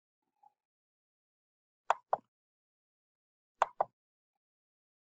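Two pairs of sharp clicks, about a second and a half apart, from a computer mouse being clicked to advance presentation slides; otherwise near silence.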